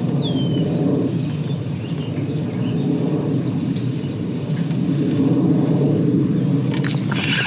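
A steady low rumble, with one short descending bird chirp near the start. About seven seconds in, a sharper noise with clicks sets in.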